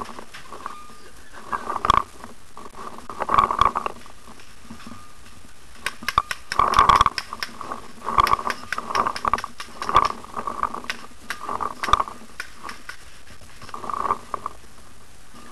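Irregular muffled knocks and rustles with scattered sharp clicks, the busiest stretch in the middle: handling and movement noise of a paintball marker carried through woodland.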